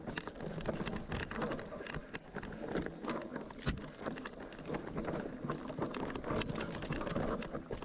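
Mountain bike riding down a wet, muddy trail: tyres rolling through mud and over stones with a dense clatter from the bike, and one sharp knock about three and a half seconds in.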